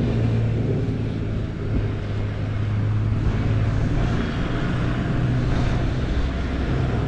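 A vehicle running steadily: a constant low mechanical hum over a broad rushing noise.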